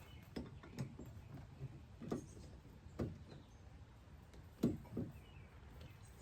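A few faint, irregular clicks and knocks from hand work on the metal mount hardware, the kind made by a tool and nuts being handled and tightened.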